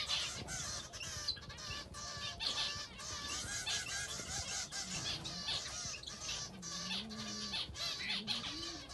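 Young small birds chirping and squawking continuously in rapid, overlapping calls: fledglings begging to be fed by the adult male.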